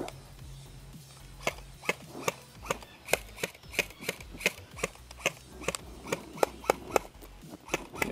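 Airsoft rifles firing single shots, a sharp click about two or three times a second, starting about a second and a half in.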